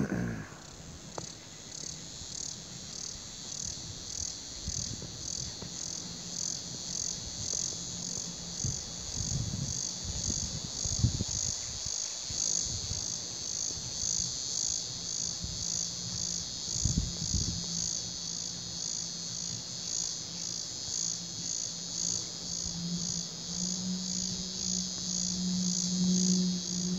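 Evening insect chorus: a high, steady trill that pulses about twice a second. A low hum comes in about halfway and grows louder near the end.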